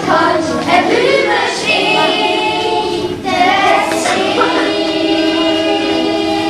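Children singing a song together, with long held notes.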